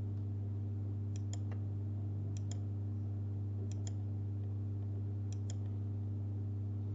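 Computer mouse button clicking four times, each a pair of quick clicks, about every second and a half, over a steady low hum.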